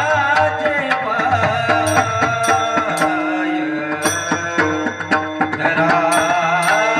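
Mridang, a two-headed barrel drum, playing a quick run of rhythmic strokes (bols) under a wavering sung melody and steady held accompanying tones.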